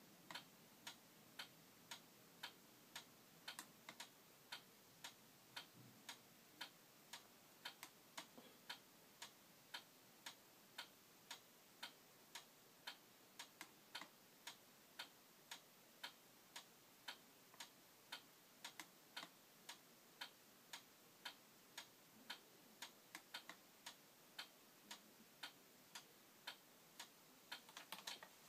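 Faint, even clicking at roughly one and a half to two clicks a second from the lightbar's controller switching in time with the flash pattern, with a quick run of clicks near the end that then stops.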